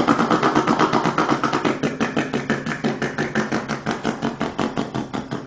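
Truck engine running with an even, rapid knocking beat of about seven to eight pulses a second. It starts suddenly, eases off a little and stops near the end.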